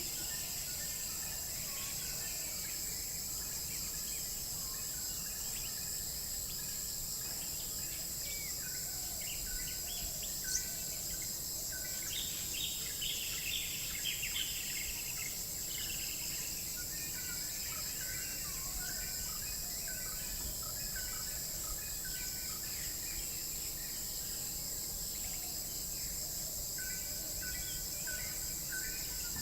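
Outdoor ambience: a steady high-pitched insect chorus with birds chirping over it, the chirps busiest about twelve to fifteen seconds in.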